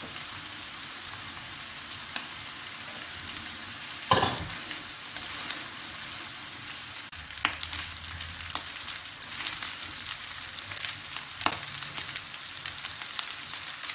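Rice and vegetables sizzling and frying in a metal wok, with one sharp knock against the pan about four seconds in. From about halfway, a wooden spatula stirs the rice, with irregular scrapes and clicks against the wok.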